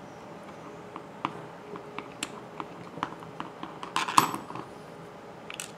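Small metal clicks and clinks from a model four-stroke engine and hand tools being handled and set down during disassembly, with a louder clatter about four seconds in.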